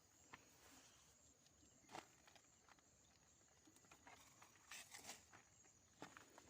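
Near silence: a faint steady high hiss, with a few soft scattered clicks, the loudest a small cluster about five seconds in.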